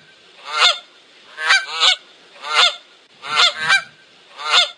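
Goose honking repeatedly, about seven loud nasal honks, some in quick pairs, roughly a second apart.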